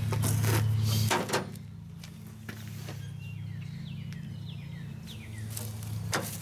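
Sharp clicks and clinks from handling drum-brake parts on an axle, several in the first second or so and a few more later, over a steady low hum that drops in level about a second in. Small birds chirp with short falling notes midway.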